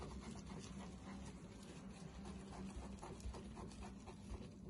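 Faint, scratchy rubbing as dried thermal paste is wiped off a CPU heatsink by hand, the paste not coming away. A low steady hum runs underneath.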